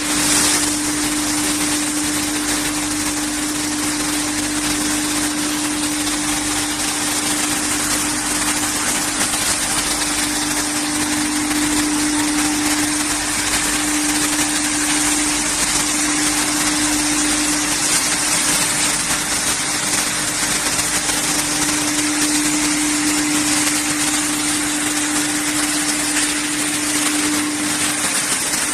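Wood hammer mill running and crushing wood chips fed in from a belt conveyor: a loud, steady machine noise with a constant hum underneath.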